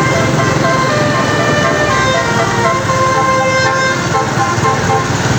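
Bus telolet horn, a Basuri multi-tone air horn, playing a rapid melody of short notes that change pitch every fraction of a second. A bus engine runs underneath.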